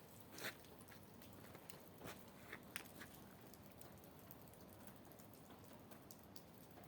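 Near silence: faint room tone with a few soft clicks in the first three seconds.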